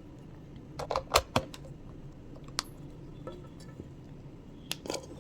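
Scattered small clicks and knocks of a charger and USB cable being handled and plugged in. There is a quick cluster about a second in, single clicks in the middle, and another cluster near the end.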